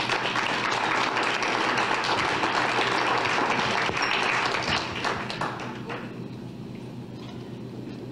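Audience applauding, full for about five seconds, then thinning out and dying away.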